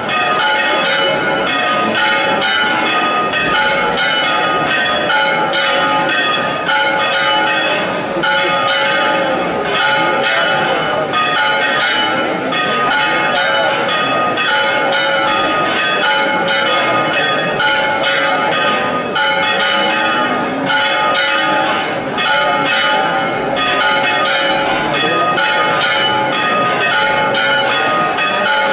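Church-tower bells pealing: many bells struck in quick, irregular succession, each stroke ringing on into the next. This is a festive peal welcoming the procession as it stands before the church.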